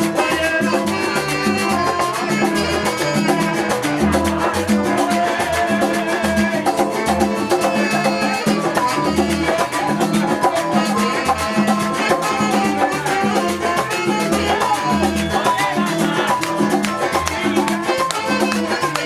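Latin dance music in salsa style, with percussion and a steady, pulsing bass beat.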